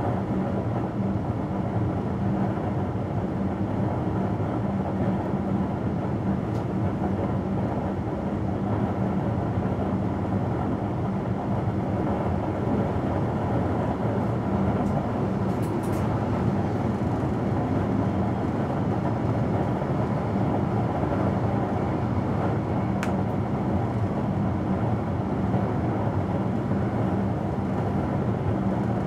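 Steady running noise of an electric passenger train at speed, heard inside the driver's cab, with a constant low hum under the rumble.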